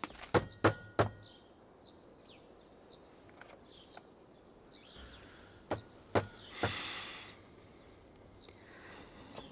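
Knocking on a wooden double door: three quick knocks, then two more after a pause of several seconds. Birds chirp faintly in the background.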